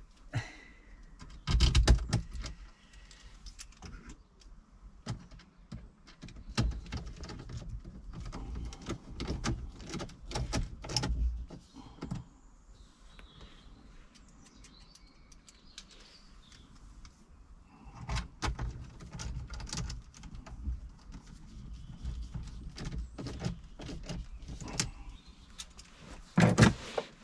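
Scattered clicks, knocks and rattles of hands and a small tool working at a van's dashboard around the refitted head unit, with a sharp knock about two seconds in and another cluster near the end.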